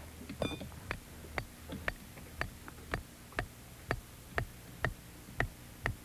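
A hammer striking a hand-held metal rod in a steady rhythm, about two sharp metallic blows a second, each with a brief ring.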